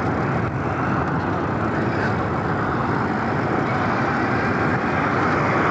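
Steady rushing noise of riding a Super73 S2 electric bike at speed, with road traffic running alongside.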